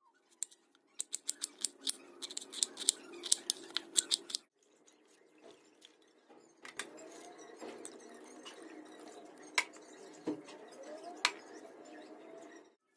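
Knife cutting through a raw onion in quick crisp cuts, about four a second, for roughly four seconds. After a brief break come quieter handling sounds with a few sharp clicks as the chopped onion is worked into the fish.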